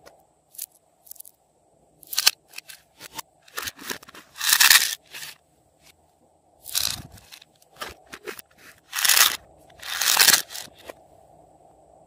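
A series of short, irregular scraping and crinkling noises, about half a dozen, with small clicks between. The longest and loudest comes about four to five seconds in, and two more strong ones come about nine and ten seconds in.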